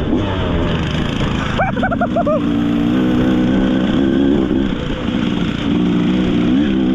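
Beta 200RR two-stroke dirt bike engine running at low, fairly steady revs, its pitch dipping and rising a little as the throttle is worked. A brief run of about four quick, higher-pitched chirps comes just under two seconds in.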